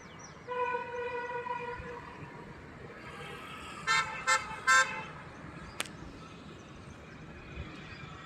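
Vehicle horn sounding: one steady honk of about a second and a half, then three short, louder toots in quick succession. A sharp click follows, and there are faint high chirps at the very start.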